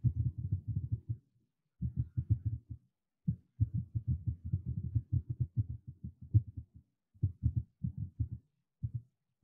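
Computer keyboard typing in quick runs of keystrokes with brief pauses between words, heard as dull, low thuds.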